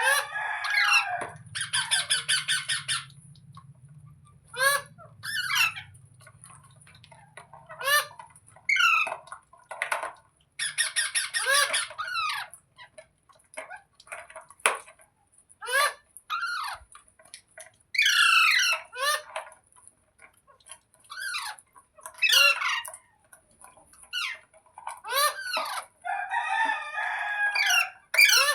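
Pet parrot calling and squawking over and over: many short, shrill calls with quick pitch swoops, broken by a few longer harsh screeches about a second long.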